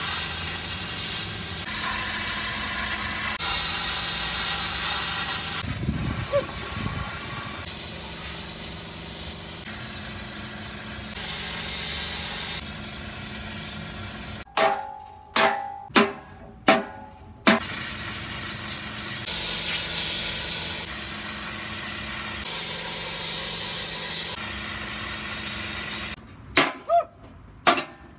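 Handheld plasma cutter hissing steadily as it cuts through a steel beer keg, in several stretches that start and stop abruptly. About halfway through come four sharp ringing metal blows, and a few more near the end as a hammer strikes the keg.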